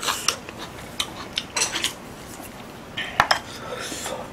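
Eating utensils clicking and scraping against bowls and dishes: a wooden spoon at a rice bowl and chopsticks picking up cubes of radish kimchi, in scattered short clicks with one sharp clink a little past three seconds in.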